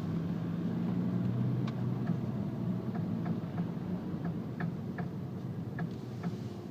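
A car with a knock at the front end: about ten sharp, irregularly spaced knocks over a steady engine hum.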